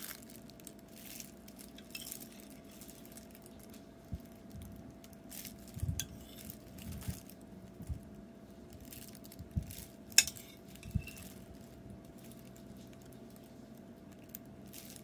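A metal spoon clinking and tapping against a ceramic bowl of broth as eggs are set into it, with a few soft low thuds. The sharpest clink comes about ten seconds in, over a faint steady hum.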